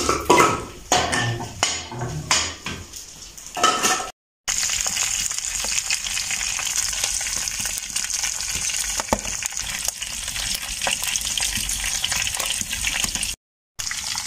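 Dry wooden window-frame pieces being snapped and knocked apart by hand, a few sharp cracks and clunks over the first four seconds. Then a steady sizzle with fine crackles from chunks of pork fat frying in a pan on a wood-fired stove.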